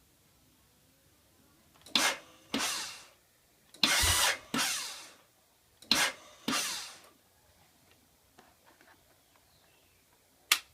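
Electric starter of a Ducati Monster 795 that won't start, tried three times: each press gives a short whir and then a longer whir that winds down, and the engine does not catch. A single sharp click near the end.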